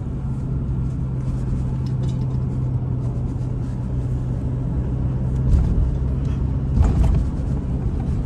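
Car interior noise while driving: a steady low engine and road hum, with two louder thumps a little past halfway.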